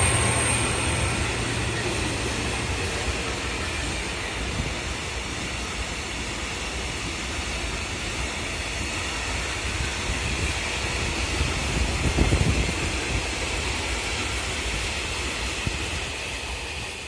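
A train going past on the line, its rolling rumble and rail noise slowly fading as it moves away.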